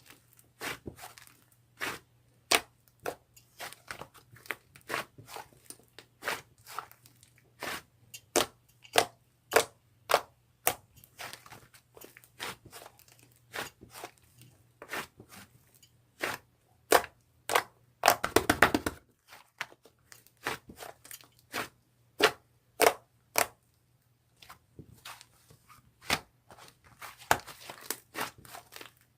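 A series of irregular sharp crunches and clicks, one to two a second, with a quick rattling run of them about two-thirds of the way through.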